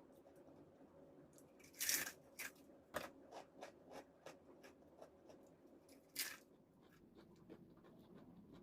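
Crunchy spicy balado snack chips bitten and chewed close to the microphone. A loud crunching bite comes about two seconds in, then a run of shorter crunching chews, and another loud crunch comes about six seconds in.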